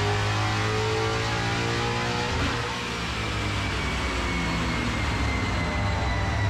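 Supercharged Aluminator 5.0 V8 in a Mustang Boss 302 running under load on a chassis dyno. The revs climb, the sound dips briefly about two and a half seconds in, then it runs on with a thin high whine that falls slowly.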